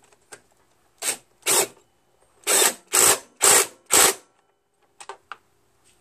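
Ratcheting tool clicking in six short bursts while the engine cover's bolts are run in: two about a second in, then four more about half a second apart.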